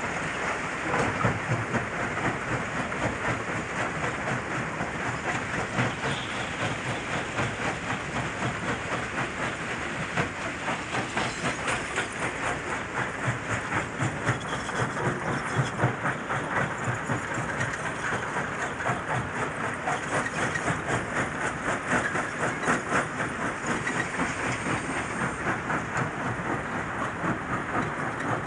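Stone-crushing plant machinery running: broken rock rattling along a belt conveyor and a vibrating feeder, with the machines' mechanical running noise, a dense, continuous clatter.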